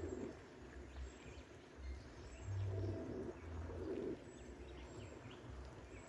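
A dove cooing: a series of low hoots, each about half a second long, repeated a few times, with faint high chirps of small birds behind it.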